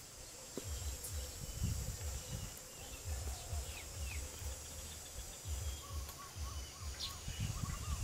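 Wind buffeting the microphone in repeated low gusts, over faint bird chirps and a steady high insect hum; near the end a bird repeats a short call several times.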